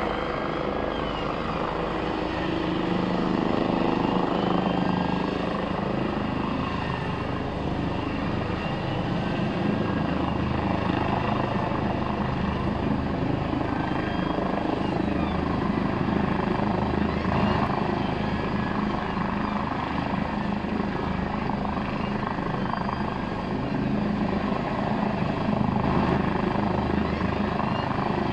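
A helicopter hovering low and slowly descending to land, its rotor and engine running steadily without a break.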